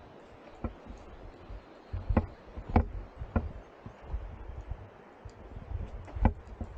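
Irregular sharp knocks and clicks, three of them evenly spaced a little over half a second apart in the middle and a strong one near the end, over low rumbling bursts.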